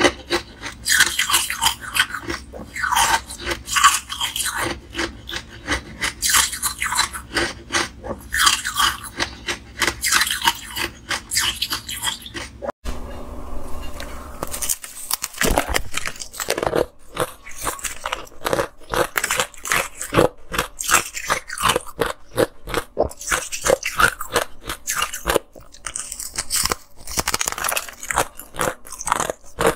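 Close-miked crunching and chewing of ice, many sharp cracks in quick succession as hard purple ice is bitten through and ground between the teeth. Near the middle it cuts off abruptly, with a short quieter stretch, before the biting and crunching start again.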